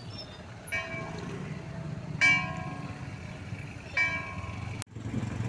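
A bell-like chime struck three times, about one and a half seconds apart, each ring fading away, over the low steady rumble of a vehicle. A sharp click near the end briefly cuts the sound.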